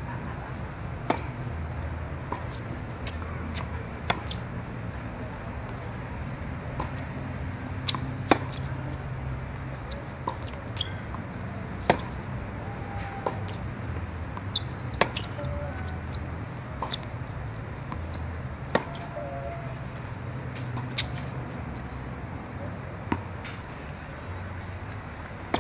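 Tennis ball struck by rackets and bouncing on a hard court during a serve and rally: sharp pops every second or two over a steady low background rumble.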